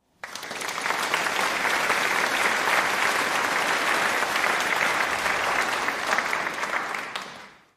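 Crowd applause, a dense steady patter of many hands clapping, that rises in quickly and fades away near the end.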